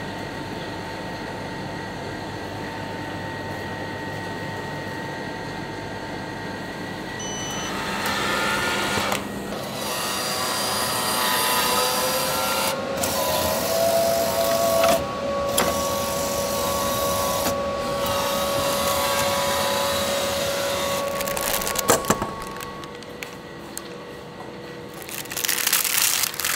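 Steady mechanical hum, louder from about eight seconds in, with a faint tone that slowly rises partway through and a few sharp clicks near the end.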